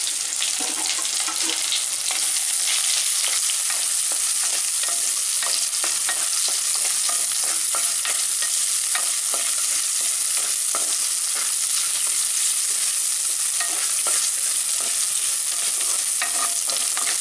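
Sliced shallots, curry leaves and fennel seeds sizzling steadily in hot oil, freshly added and being sautéed. A wooden spatula scrapes and knocks against the pot as it stirs them, over and over.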